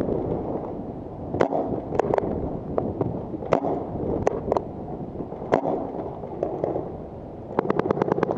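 Paintball markers firing: scattered single shots, then a rapid burst of shots near the end.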